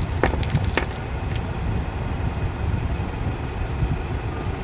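Three light clicks of small metal starter-motor parts being handled, all in the first second and a half, over a steady low background rumble.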